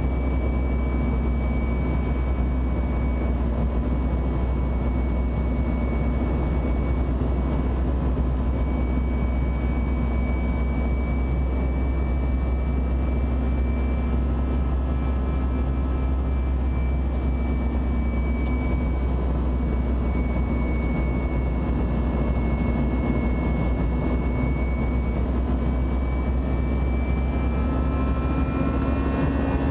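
Airbus A320 turbofan engine heard from a window seat inside the cabin during the climb. It makes a steady, loud drone with a deep rumble and a few steady humming tones over it.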